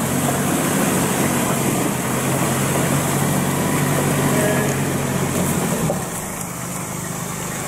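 Four-wheel-drive ute's engine running steadily at low speed while it fords a shallow creek, water splashing around the tyres. The engine sound drops a little about six seconds in as the vehicle climbs out and moves off along the gravel track.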